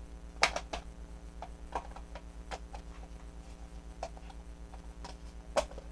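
Scattered clicks and knocks of hard plastic toy parts being handled and fitted together, the loudest about half a second in, over a steady low hum.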